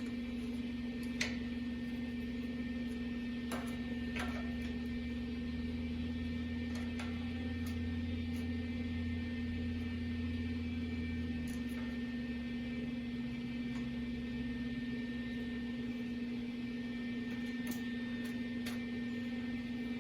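A steady electrical hum, with a low rumble that swells for a few seconds in the middle and a few light clicks and taps scattered through.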